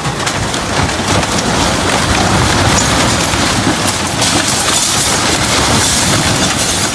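Rushing floodwater, a loud, steady rush with many small cracks and knocks through it.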